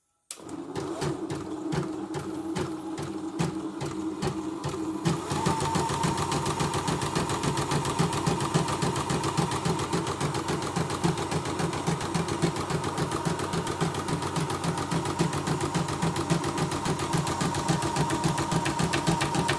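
CNY E960 embroidery machine stitching a test design with rapid, even needle strokes, picking up speed about five seconds in. A knocking rattle rides on it, which the repairer puts down to an uncovered part working loose from the vibration.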